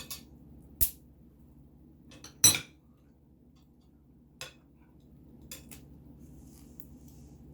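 Four separate sharp clinks and knocks of a metal pincher tool and utensils against plates and crab shells while land crabs are eaten. The loudest comes about two and a half seconds in and rings briefly.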